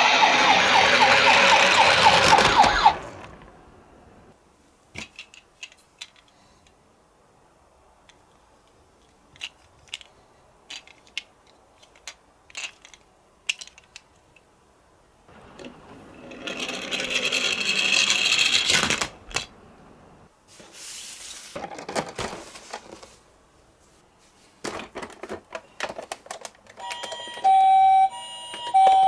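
Toy ambulance minicar rolling down a slope: a loud rolling rattle for about three seconds, scattered clicks of handling, a second roll a little after halfway, then near the end its electronic siren starts, alternating between two tones.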